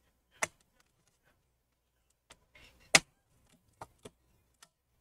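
Bottom cover of a Dell Inspiron P125G laptop being pried off, its retaining clips snapping loose in about half a dozen sharp clicks. The loudest comes about three seconds in.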